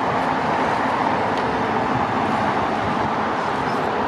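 Steady roar of jet engine noise from airliners at the airport, even and unbroken.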